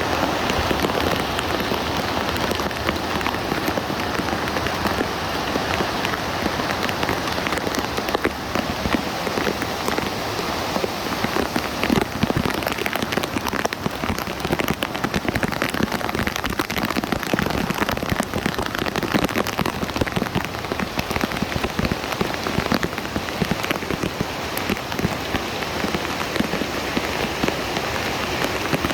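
Heavy rain falling steadily, a dense crackle of countless small drop impacts with no let-up.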